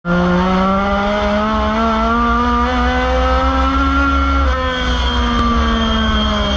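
Dirt-track race car's engine heard from inside the cockpit at speed, its pitch climbing steadily under throttle, then dropping sharply about four and a half seconds in and sinking slowly from there.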